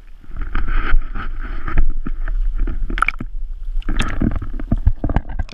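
Water splashing and sloshing as a largemouth bass is lowered into the lake and released, with sharp splashes about three and four seconds in, over wind rumbling on the microphone.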